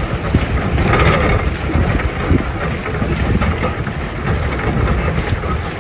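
Steady low rumble of wind on the microphone aboard a moving pedal boat on a lake.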